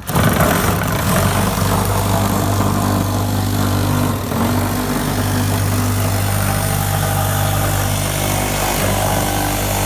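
Power saw running steadily under load, cutting into the top of a chimney enclosure. It starts abruptly and keeps a steady motor hum with a slight dip about four seconds in.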